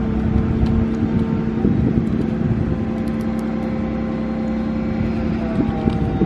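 Boat-yard travel lift's engine running steadily nearby, a constant low hum.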